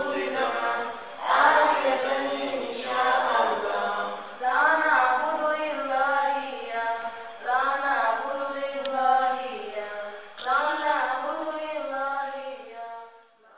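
Voices chanting in unison, unaccompanied, in phrases about three seconds apart; the chant cuts off abruptly near the end.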